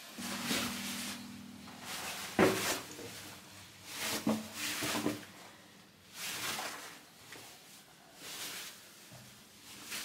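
A series of irregular rustling scrapes, about six in all, with a sharp knock about two and a half seconds in.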